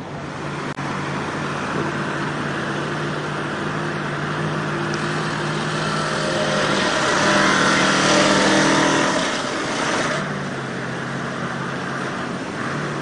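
A truck engine running under load. It grows louder and works harder from about six seconds in, then eases back a little after ten seconds.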